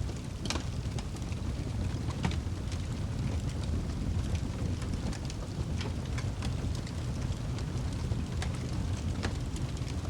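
Fire burning in a fireplace: a steady low rumble of flames with scattered sharp crackles and pops, a strong one about half a second in.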